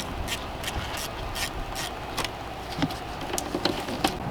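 A 1/4-inch drive ratchet clicking in short strokes on a 10mm socket, loosening the negative battery terminal, about three clicks a second at first and fewer near the end.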